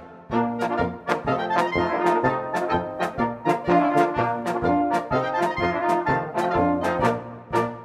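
Brass band music with a steady beat, about three beats a second.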